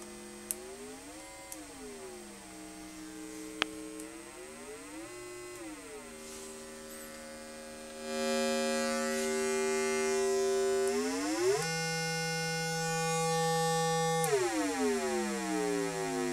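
Square-wave tone from an ATmega8 microcontroller toggling an output pin, stepping up and down in pitch as its pitch-up and pitch-down switches are pressed. A few sharp clicks sound early on. About eight seconds in the tone gets louder and holds a higher note, then near the end it sweeps steeply down.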